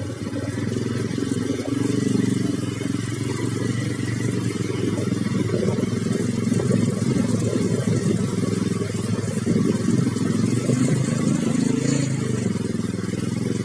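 Motor vehicle engine running steadily while under way, a continuous low rumble with no clear changes in speed.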